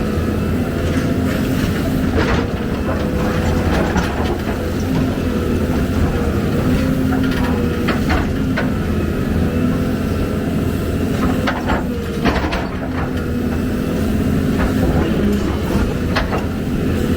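Excavator's diesel engine running steadily, with occasional sharp metallic clanks from the machine working.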